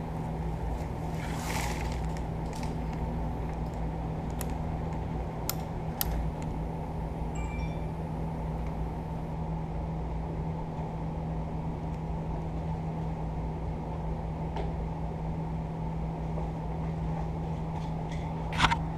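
Prem Aire 9,000 BTU PTAC air conditioner running, its compressor and fan giving a steady low hum, with a few sharp clicks scattered through it.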